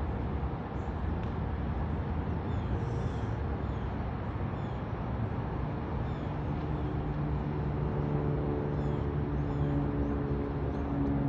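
Steady outdoor background rumble with a motor hum, like a vehicle engine, that grows louder through the second half. Faint, brief bird chirps sound now and then.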